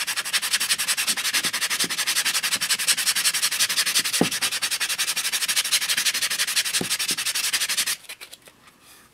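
A hand sanding block rubbed quickly back and forth along the glued paper edges of a recipe box, sanding them smooth. The strokes are rapid and even, and stop abruptly about eight seconds in.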